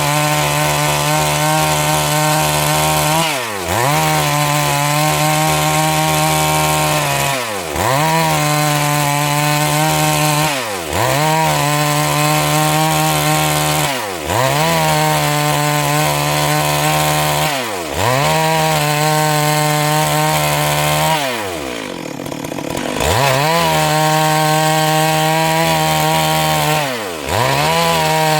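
Stihl MS 382 two-stroke chainsaw running at high revs, ripping a Siris log lengthwise into boards. The engine note drops sharply and climbs back about every three to four seconds, seven times, with one longer dip about two-thirds of the way through.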